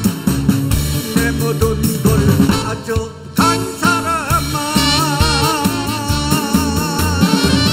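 Korean trot song performed live: a male singer's vibrato-laden vocal over a band of drums, bass, keyboard and saxophone with a steady beat. There is a brief drop about three seconds in before the melody resumes with long, wavering held notes.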